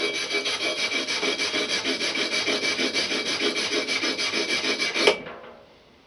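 Power tool stripping old paint off a steel mower bracket: a steady abrasive scouring with a quick, even pulsing and a faint motor whine. About five seconds in it stops suddenly and the noise fades away as the tool winds down.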